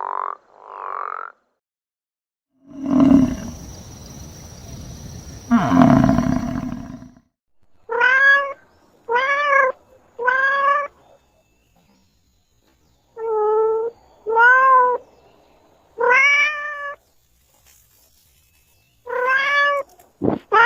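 Animal calls. A noisy stretch with two loud onsets is followed by nine short pitched calls in three groups of three, each call rising and then falling in pitch.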